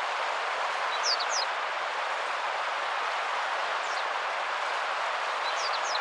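Steady rush of flowing river water, with a few short, high bird chirps on top: a pair about a second in, a single one around four seconds, and another pair near the end.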